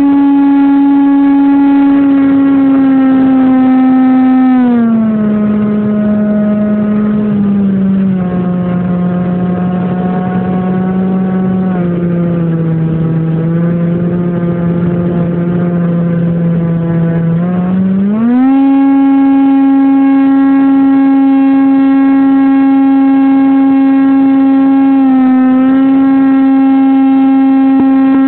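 Model airplane's motor and propeller heard from on board, a steady buzzing drone. It is throttled back about five seconds in, eases lower still over the next several seconds, then is throttled up again to its first pitch at about eighteen seconds, with a brief dip near the end.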